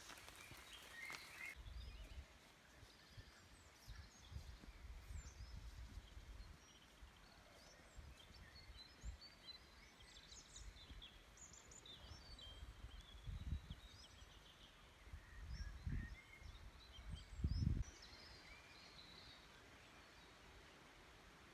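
Faint birdsong in woodland: many short chirps and calls from several birds, scattered throughout. A few low thumps stand out, the loudest near the end.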